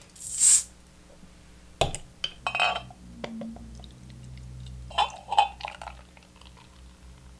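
A glass beer bottle's cap is prised off with a short hiss, followed by a few clinks of glass. Then stout pours from the bottle into a glass mug for a few seconds, with more clinks of bottle against glass.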